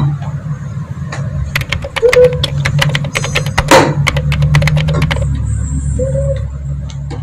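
Rapid clicking and tapping on a laptop keyboard, with two short beeps voiced by mouth to imitate a checkout barcode scanner, one about two seconds in and one about six seconds in.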